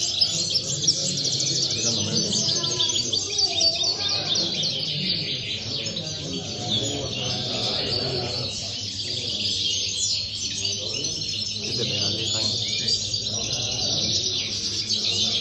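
Caged European goldfinches singing, several at once: a continuous jumble of fast twittering and trilled phrases.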